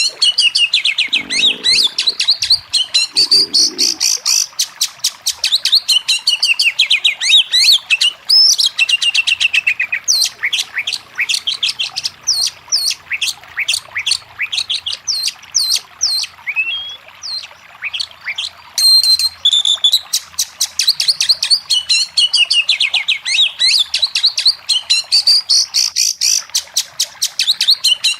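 Oriental magpie-robin (kacer) singing a fast, unbroken song of rapid repeated chirps and whistles with quick downward-sweeping notes. Two dull low thumps come about one and three seconds in.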